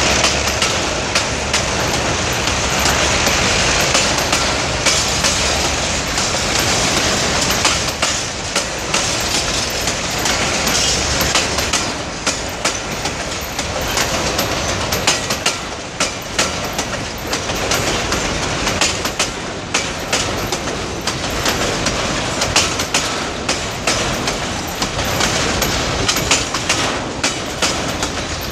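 Freight train of covered hopper wagons rolling past, wheels clicking and clacking over the rail joints in an irregular stream of sharp knocks over a steady rumble. The low hum of the pair of GE G22U diesel locomotives ahead fades out in the first few seconds.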